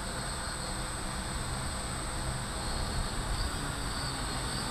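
Steady hum of an RCTimer 800 hexacopter's six brushless motors and 13-inch carbon fibre propellers as it hovers overhead.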